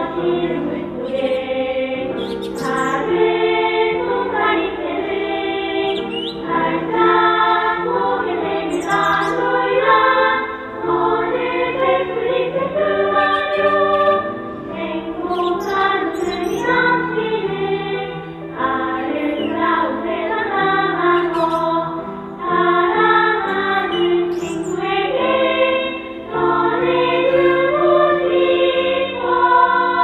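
Children's choir singing a Korean children's song (dongyo), phrase after phrase with short breaths between lines.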